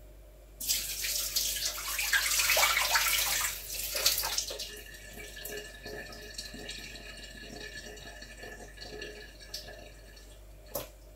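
Water splashing into a kitchen sink as cut potato sticks soaked in cold water are drained and rinsed in a glass bowl: a loud rush for about four seconds, then a quieter trickle. A single sharp knock near the end.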